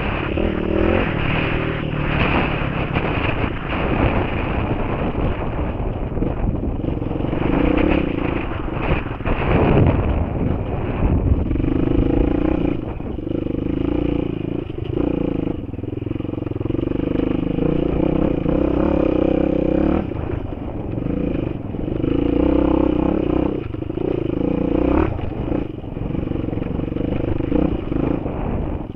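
Single-cylinder enduro motorcycle engine under throttle on a dirt track, revs rising and falling, heard from a helmet camera with wind noise and the rattle of the bike over rough ground.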